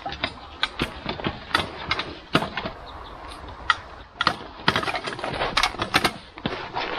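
Heavily loaded hand cart rattling and clattering as it is steered down a rough dirt path over roots and stones, with many irregular sharp knocks.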